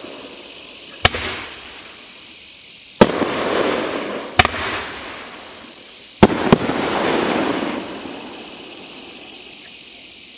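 A 500 g, 15-shot consumer fireworks cake firing: five sharp bangs, the last two close together. Each bang is followed by about a second of hissing.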